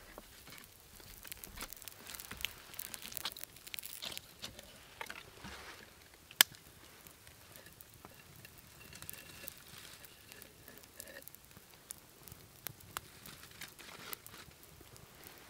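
Dry pine needles burning and crackling, with irregular small snaps and one sharp, loud pop about six seconds in.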